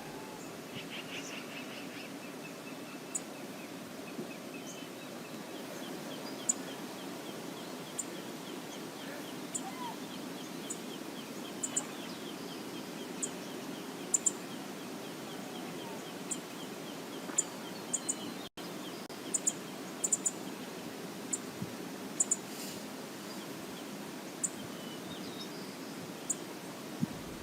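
River water running steadily, with a faint rapid high bird trill through the first two-thirds and scattered short, sharp high clicks.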